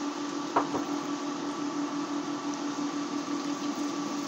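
Pork and grated carrot frying in a stainless steel pan: a steady sizzle over the steady hum of an induction hob, with one short clink about half a second in.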